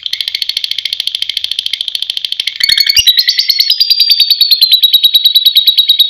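Lovebird giving its long 'ngekek' song: a continuous, rapid, high-pitched chattering trill. It briefly breaks with a click about halfway through, then carries on louder.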